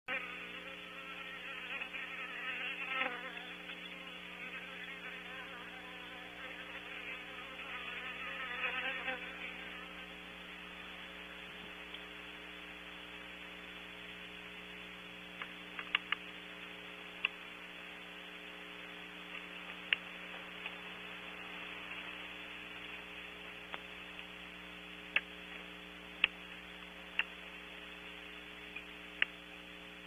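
Barn owl owlets in the nest cavity: two raspy, buzzing hisses in the first ten seconds, then a scattered run of short, sharp clacks (bill clacking) through the second half, over a steady electrical hum.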